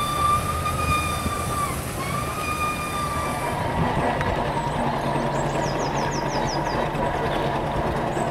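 A steam engine's whistle blowing twice: a held note that breaks off just before two seconds in, then a second blast of about a second and a half. After it the engine's steady low running sound goes on.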